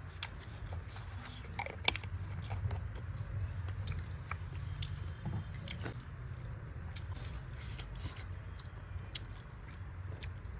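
A person chewing and biting into food close to the microphone, with scattered short crunches, over a low steady hum.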